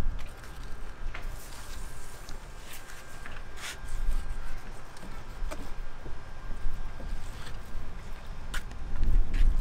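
Fillet knife slicing through a large swordfish loin on a cleaning table, over a steady low rumble and a faint steady high hum, with a few sharp clicks.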